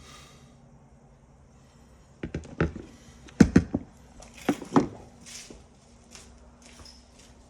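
Sharp knocks and clicks of seatbelt retractor parts being handled and fitted together, a burst of them from about two seconds in to about five, the loudest a few hard clacks near the middle.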